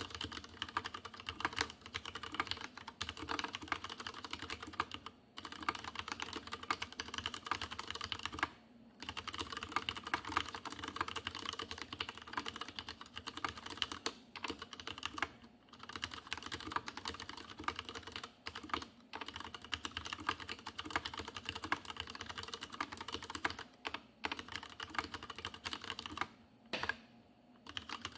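Typing on a Leopold FC750R tenkeyless mechanical keyboard with unlubricated Cherry MX Red linear switches and PBT dye-sublimated keycaps: rapid, continuous keystroke clatter broken by short pauses every few seconds. The case has a pronounced hollow resonance.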